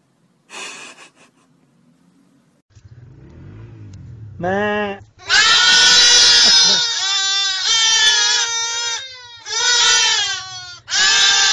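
A crowded pen of young livestock bleating: one rising and falling call about four and a half seconds in, then loud, wavering bleats from many animals that overlap and come in waves. Before the calls there is a short rustle and a low murmur.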